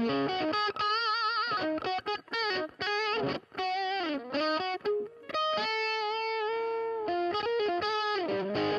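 Electric guitar with a GFS gold foil pickup, played through a Boss DS-1 distortion pedal into a Vox Pathfinder 15R amp: a single-note lead line with wide vibrato, string bends up and down, and a long held note in the middle.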